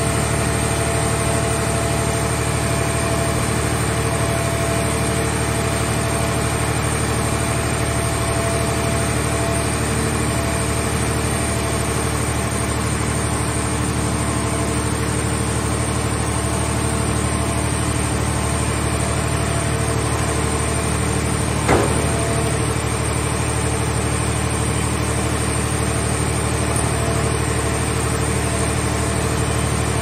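Scrap car-shell baler's hydraulic power unit running steadily while it works the grab arm: a constant engine-like drone with a few steady held tones over it. A single sharp knock sounds about two-thirds of the way through.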